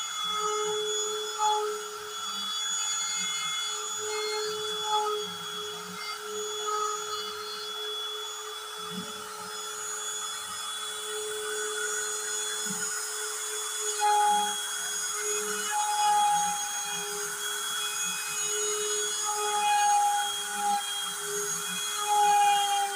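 Wood router serving as the spindle of a homemade CNC machine, running with a steady high whine as its bit carves grooves into an MDF panel. A lower hum joins for a few seconds about nine seconds in.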